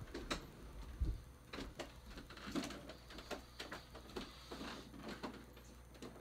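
Faint irregular clicks and rustles, a few a second, over a low rumble.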